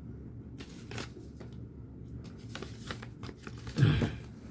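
Small red gift pouch crinkling and rustling in scattered short crackles as it is handled, with a brief louder thump near the end.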